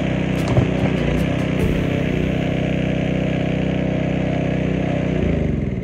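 Gas-engine pressure washer running steadily, with the hiss of the water spray for about the first two seconds. Near the end the engine is shut off and its pitch falls as it winds down.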